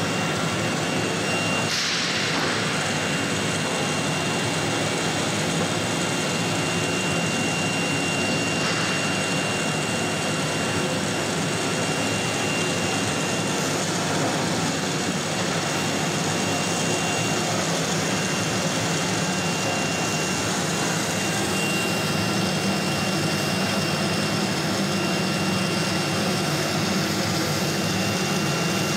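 CNC router's vacuum table pump and machinery running steadily, a constant drone with a thin high whine over it. Two brief louder whooshes come about two and nine seconds in.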